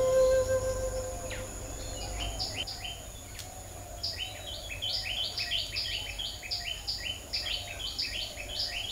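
Birds chirping: a rapid series of short, downward-sweeping chirps, sparse at first and then close together from about four seconds in.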